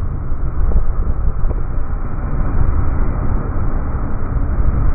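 Freight train of container wagons rolling past close by, a steady deep rumble of wheels on rails. It is heard through slow-motion playback, so the sound is stretched and low.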